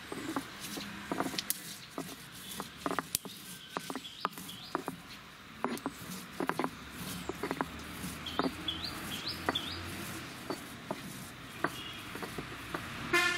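Stone roller rolled over a granite grinding slab, crushing whole fennel seeds and spices with irregular sharp knocks and crunches. Small birds chirp a few short notes in the middle, and a bird gives a short call near the end.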